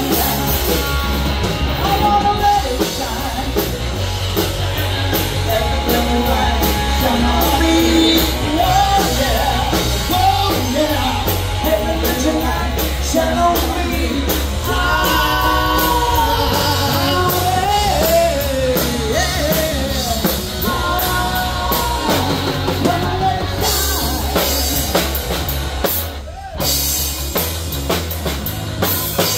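Live rock band playing: electric guitar, bass guitar and drum kit, with a bending lead melody line over the top. Near the end the band drops out for a moment, then the drums carry on.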